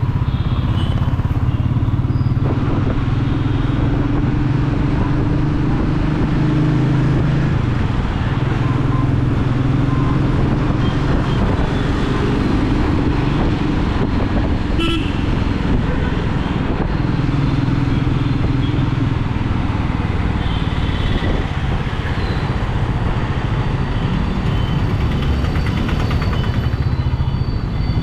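Royal Enfield Meteor 350's single-cylinder engine and exhaust running steadily while cruising, the engine note rising and easing slightly with the throttle. A single sharp click about halfway through.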